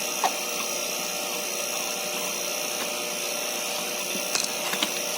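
Steady mechanical drone of a refrigerant vacuum pump running while a split-type aircon system is evacuated, with a few small clicks about four to five seconds in.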